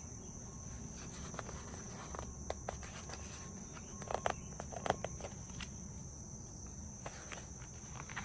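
Crickets chirping in a steady, high continuous trill, with a few soft clicks and taps scattered through, a little louder around the middle.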